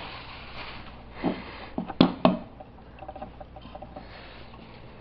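Handling noise from a plastic travel mug being turned over in the hands: a few short, light knocks and clicks, clustered between one and two and a half seconds in, then faint scattered ticks.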